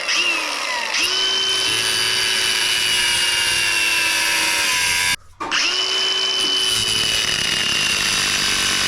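Handheld electric power tool running under load with a steady whine. It dips in pitch near the start, cuts out briefly about five seconds in, then spins back up and runs on.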